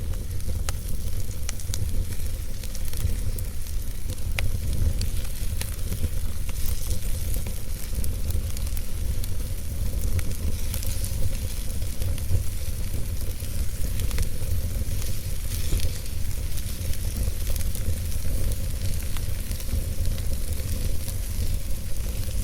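Campfire burning: scattered sharp crackles and pops over a steady hiss and a low rumble.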